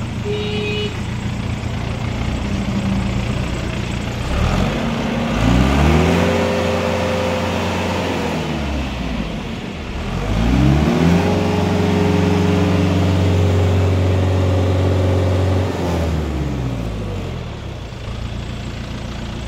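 Mitsubishi MT3201D tractor's diesel engine idling, revved up twice and held for a few seconds each time before dropping back to idle, running smoothly.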